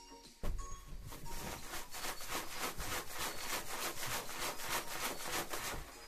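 A large latex balloon filled with confetti, rubbed and handled right against the microphone: a thump, then rapid rhythmic rubbing strokes, about five a second, that stop shortly before the end.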